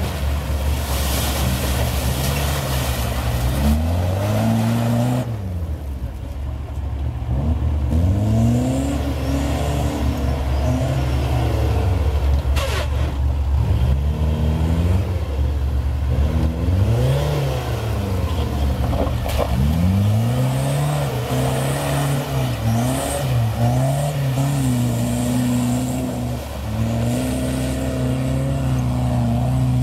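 Off-road 4x4 engines revving hard and easing off over and over as they work through mud and over rough ground. The pitch rises and falls every second or two.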